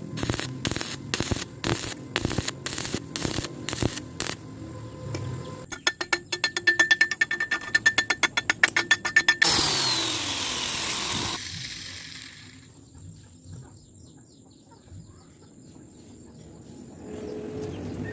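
Welding arc in short, evenly spaced pulses: sharp crackles about two a second, then faster pulsing about seven a second, then a couple of seconds of steady hiss before it goes quiet.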